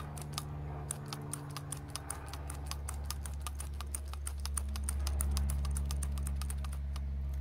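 Multi-needle felting tool stabbing rapidly and repeatedly through wool fibres into the foam pad beneath, a quick, even run of sharp clicks, several a second, as a patch is anchored over a moth hole in a wool sweater. A steady low hum runs underneath.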